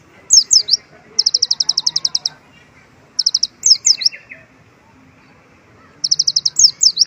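Kolibri ninja sunbird singing loud, high phrases. Fast even trills of about ten notes a second alternate with quick falling slurred notes, in three bouts with pauses between. Its song is filled with phrases learned from white-eyes (pleci).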